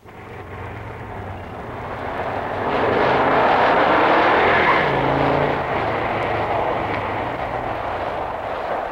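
Traffic noise that cuts in suddenly and swells as a car's engine passes, loudest about three to five seconds in, then settling to a steady street din.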